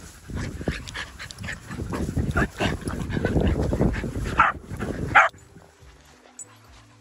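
Small dogs barking and yipping as they play, over heavy rumbling noise on the microphone, with two loud barks near the end before the sound drops away abruptly.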